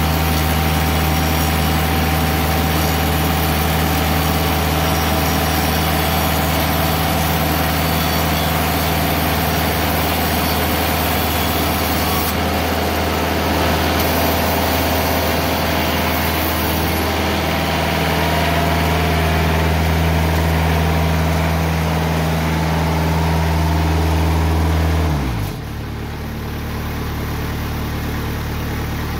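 TimberKing 2020 bandsaw mill's engine running steadily at high speed. About 25 seconds in it is throttled down: the pitch slides lower and it settles to a quieter, lower idle.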